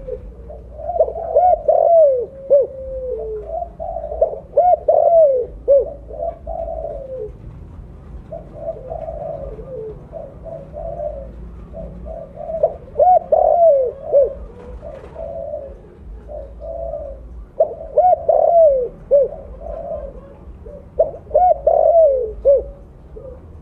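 Spotted dove cooing its repeated multi-note call, one phrase about every four seconds. The voice is deep and full.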